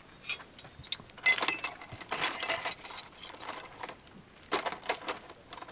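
A metal spanner clicking and clinking against the brake master-cylinder fittings of a rally car, irregular clicks with brief metallic ringing between one and three seconds in.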